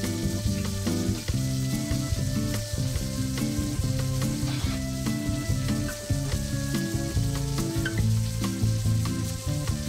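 Thick sirloin steak sizzling steadily in foaming butter in a Mauviel M250C copper frying pan, with many small irregular crackles and pops throughout.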